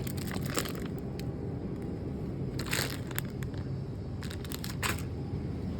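Several short bursts of crinkling, crunching noise, the clearest about three seconds and about four and a half seconds in, over a steady low hum.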